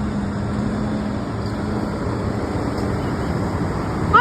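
Road traffic going by, most likely a heavy truck: a steady rumble of engine and tyre noise with a low engine hum. A rising tone starts right at the end.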